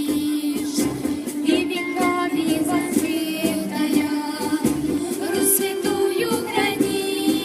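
A song with singing voices over instrumental accompaniment, performed by a children's Sunday-school group.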